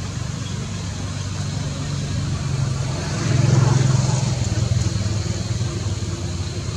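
A motor vehicle engine running with a steady low hum, swelling briefly a little past halfway through.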